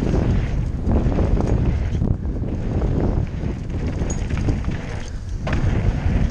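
Wind buffeting the microphone of a helmet camera on a descending hardtail mountain bike, with the tyres rolling over a dirt trail and the bike rattling over bumps.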